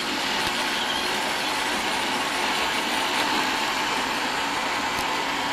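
iRobot Roomba 761 robot vacuum running, a steady, even noise from its vacuum motor and brushes.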